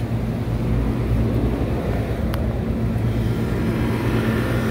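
A circuit breaker snaps on, and about two seconds later there is another click as the walk-in cooler's Tecumseh condensing unit starts up after its repair. Its reciprocating compressor and fan then run with a steady hum over the hum of other rooftop equipment.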